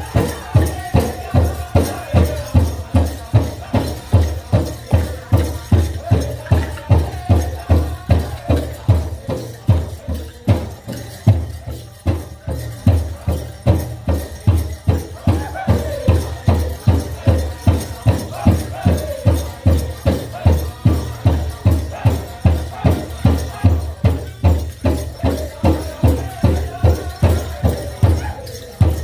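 Powwow drum group singing a dance song, the big drum beaten in a steady pulse of about two to three strokes a second under wavering high voices, with the shaking of dancers' bells.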